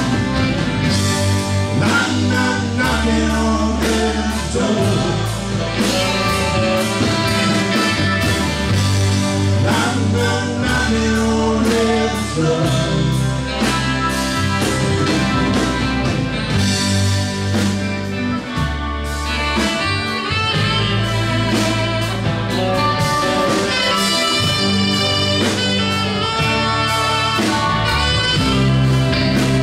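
Live band playing: electric guitars, bass guitar, drum kit and saxophone, with a singer.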